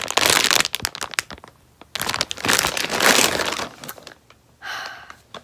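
Plastic packaging crinkling and crackling as it is handled, in two stretches of about a second and a half each.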